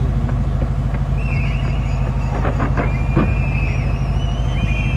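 Large fireworks display: a dense, continuous low rumble of shells bursting in quick succession, with a few sharper bangs around the middle. High whistles and crowd noise come in from about a second in.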